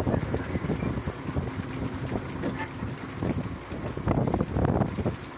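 Wind buffeting the microphone on the deck of a fishing boat at sea, with irregular knocks and rustling.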